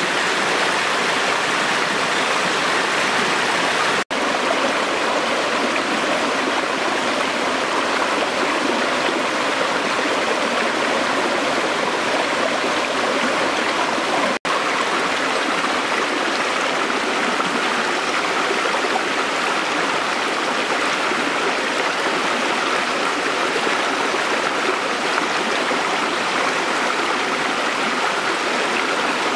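Shallow stream water rushing and splashing over rocks in a steady cascade, cutting out for an instant twice.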